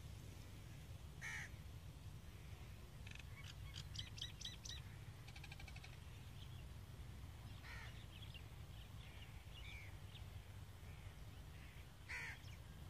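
A crow cawing three times, well spaced, with a small bird chirping in quick runs between the caws, over a steady low rumble.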